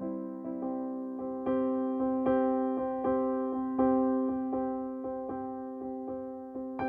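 Background music: a gentle electric piano playing a steady run of notes, each struck and fading.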